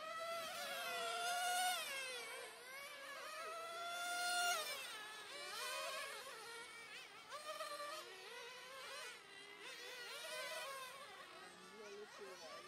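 1/10-scale radio-controlled touring cars running laps, a high buzzing whine that climbs in pitch as they speed up and drops as they slow for the turns. It is loudest twice, about two and four and a half seconds in, as a car passes close.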